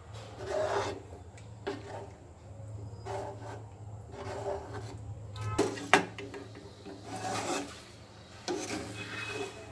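Metal ladle stirring thick, cooking rice batter in an aluminium pan, scraping and rubbing against the pan in strokes about once a second as the batter thickens. Two sharp metal clicks a little past halfway are the loudest sounds.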